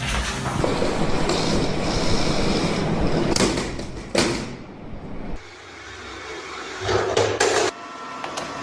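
Robot vacuum rumbling and rattling as it tumbles, with two sharp knocks about three and a half and four seconds in, then a quieter spell and a short clatter of knocks near the end.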